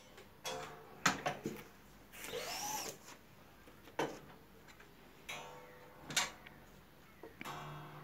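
Manual screen-printing press in use: wooden screen frames knock sharply three times, and a squeegee scrapes across the ink-loaded mesh in a few short strokes.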